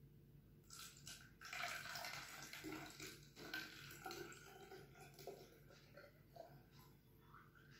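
Water poured from a copper bottle into a plastic bottle, splashing and trickling faintly. It is fullest about a second and a half in, then thins to a lighter trickle.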